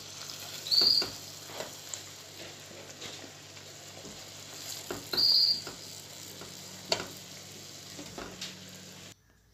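A silicone spatula scraping and tapping in a nonstick pot as cooked green beans are lifted out onto a porcelain platter, with a faint sizzle of oil underneath. There are a few sharp clicks and two short high squeaks, about a second in and about five seconds in.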